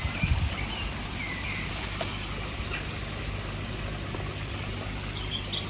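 Water running steadily into a koi pond, an even splashing rush from the pond's filter return or waterfall.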